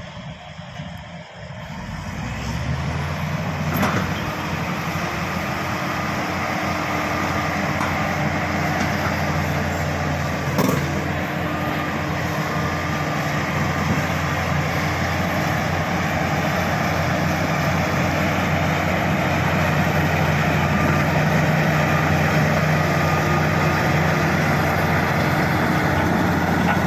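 Shantui SD16 bulldozer's diesel engine running steadily under load, coming up to a louder working pitch about two seconds in. Two sharp knocks stand out, one about four seconds in and one about eleven seconds in.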